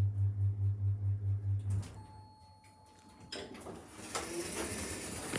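Low hum of a passenger lift running, pulsing about five times a second, which stops about two seconds in. A second or so later the sliding lift doors open with a few clicks, and a wider hiss of background noise comes in.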